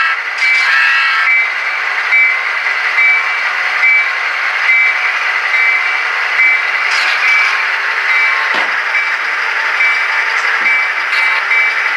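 Short, high electronic beeps repeating evenly, about one a second, over a constant loud hiss.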